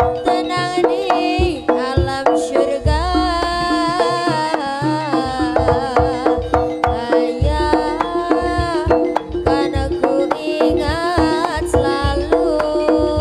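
Live East Javanese jaranan ensemble music: quick hand-drum strokes in a driving rhythm over steady ringing tones, with a bending, wavering melody line on top.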